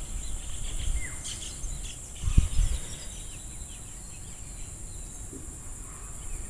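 Outdoor insect chorus: a steady high-pitched chirring, with faint scattered bird chirps and one dull low thump about two and a half seconds in.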